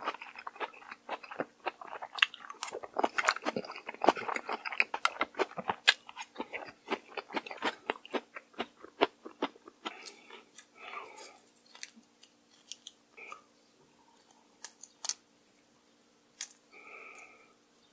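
Close-miked chewing of a mouthful of crunchy raw seafood from mulhoe, with dense wet crunches and mouth clicks. About ten seconds in this thins out to sparse clicks and soft crackles of a cooked shrimp's shell being peeled by hand.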